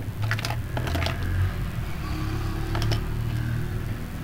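Steady low background hum with a few faint light clicks and taps.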